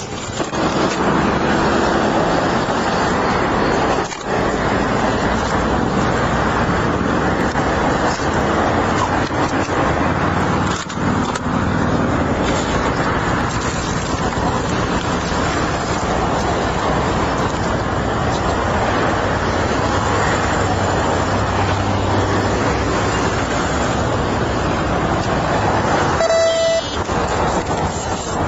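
Steady loud rushing noise of a vehicle running close by, with a low hum under it. A short electronic beep sounds about 26 seconds in.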